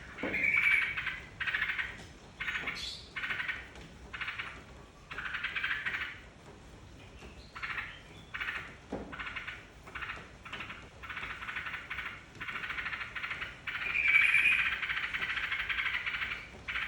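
Yellow-vented bulbul (trucukan) song used as a lure call for caged birds: a run of short chattering phrases about once a second, merging into longer continuous phrases in the second half.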